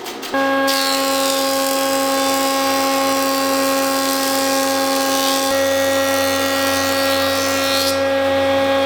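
Stationary woodworking machine running steadily: a motor whine of several steady tones under a hiss of cutting wood. The hiss drops away near the end.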